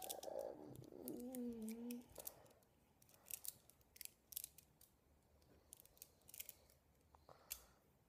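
Small magnetic balls clicking and snapping against each other as they are pressed into a ball shape: faint, sharp, irregular clicks, sometimes several in quick succession. A short hum from a person sounds in the first two seconds.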